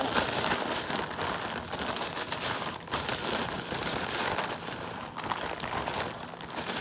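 Zip-top plastic bag of ice and salt being handled close to the microphone, its plastic crinkling and rustling steadily.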